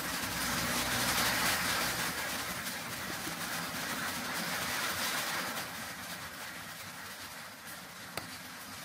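Small benchtop metal lathe just switched off: a broad mechanical noise fades gradually as the chuck slows. A single sharp click near the end comes as the chuck and part are handled.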